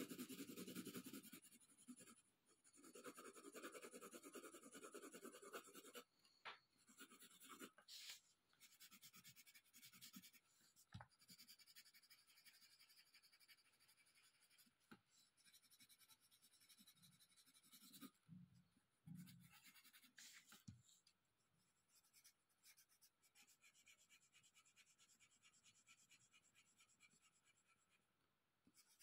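Faint, rapid scratching of a colored pencil shading back and forth on paper, coming in stretches, with a few light taps in between.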